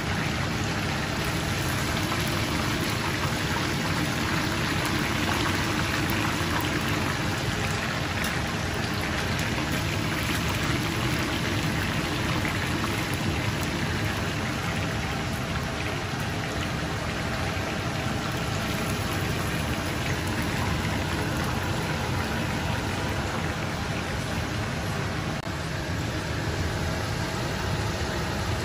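Hot cooking oil sizzling steadily as food deep-fries in a pan.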